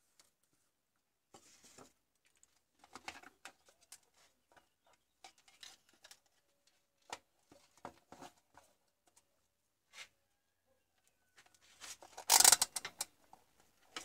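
Handling noises as a digital multimeter and its probe leads are set up on a workbench: scattered light taps, clicks and rustles, with one louder scraping rustle near the end.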